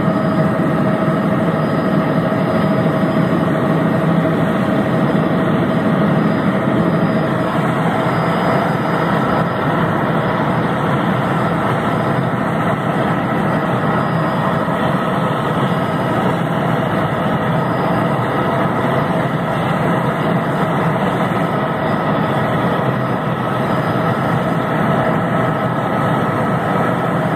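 A helicopter in flight, heard from inside the cabin: steady, loud engine and rotor noise with a few faint steady whining tones on top.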